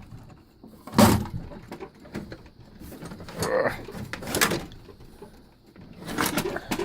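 Metal tool chest drawers sliding and steel sockets and tools clinking and clattering, a sharp clatter about a second in and several more knocks after.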